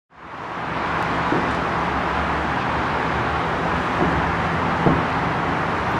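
Steady outdoor city background noise, like distant traffic, with a few dull thumps from fireworks bursting across the city, the loudest about five seconds in.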